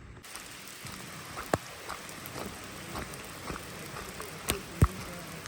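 Steady rain falling, with scattered sharp taps of single drops; the loudest taps come about a second and a half in and twice near the end.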